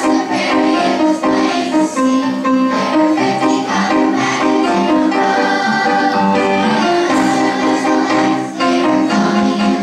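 A group of children singing a song together to instrumental accompaniment.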